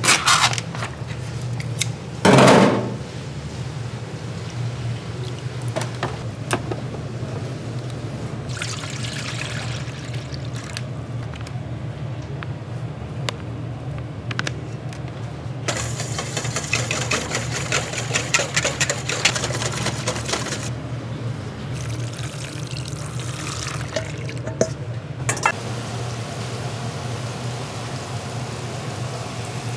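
Liquid being poured and running in a few bouts of several seconds each, over a steady low hum, with one loud knock about two seconds in.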